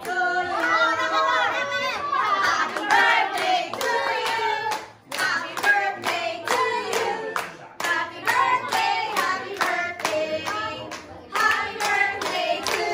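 Hands clapping in a steady rhythm along with singing voices.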